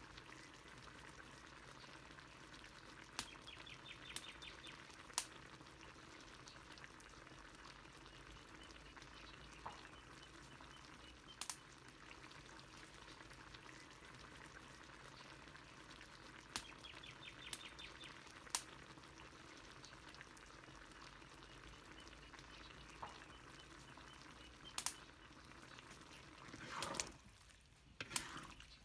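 Faint, steady simmering and sizzling of a pot of chicken adobo, with scattered sharp pops. A brief louder rustle comes near the end.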